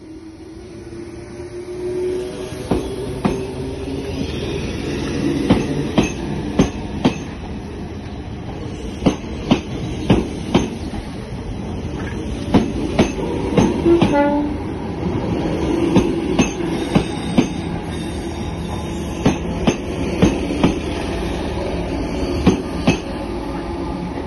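A train passing close by: its wheels clatter over rail joints in a long run of sharp clicks, often in twos and threes, over a steady rumble that builds up over the first couple of seconds.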